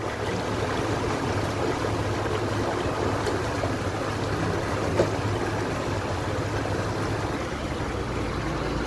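Water pouring and gushing out of a sunken wooden boat's hull as a crane lifts it clear, with a truck engine running steadily underneath. A single knock about five seconds in.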